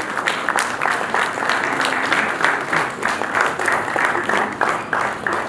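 Audience applauding: many hands clapping steadily, with a brief dip in the clapping near the end.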